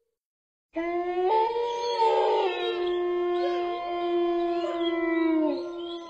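Dogs howling in long, held notes, several overlapping with rising and falling glides, starting abruptly after a brief silence.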